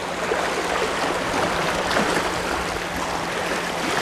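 Sea water washing steadily against the shoreline rocks, an even rushing noise.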